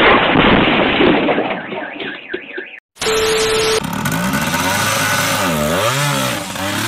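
A loud noisy rush for the first few seconds, then a short electronic glitch effect with a steady tone. After that, a Yamaha 125 two-stroke trail bike's single-cylinder engine is revved, its pitch rising and falling.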